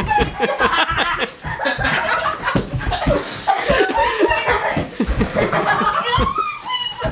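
Kids laughing and calling out excitedly while running about, with many quick thumps and footfalls on a wooden floor mixed in.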